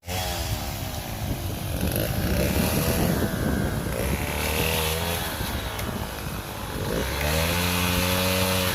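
A small engine running and revving up and down several times, its pitch rising and falling, settling into a higher steady note near the end.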